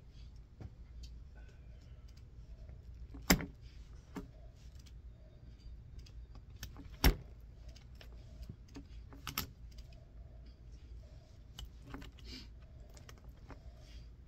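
Small clicks, light rattles and rustling from a shielded Cat 6 cable's end and wires being handled and untwisted by hand, with two sharp, louder clicks about three and seven seconds in.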